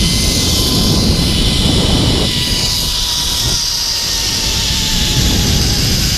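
Zip line trolley pulleys running along the steel cable with a steady rushing noise of wind over the microphone, and a thin whine that sags slightly in pitch.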